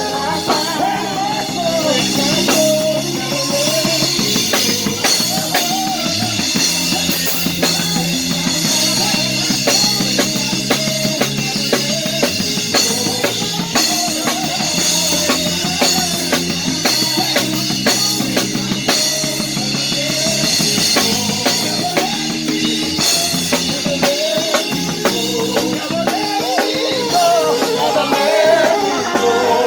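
A live worship band plays an instrumental passage, led by a drum kit keeping a steady beat with bass drum and snare under sustained low notes and a wavering melody.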